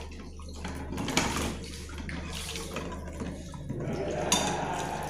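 Water sloshing and splashing in an uneven rhythm as it is stirred by hand in a basin, washing and rinsing before serving.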